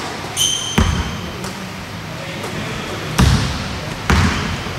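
A shoe squeaks on a court floor, then a ball thuds on the court three times, the bounces heavy and low.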